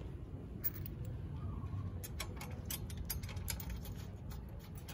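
Light metallic clicking and ticking as a steel motorcycle side rack is handled against its mounts and its bolt is turned by hand, the clicks coming in an uneven run from about two seconds in, over a low steady rumble.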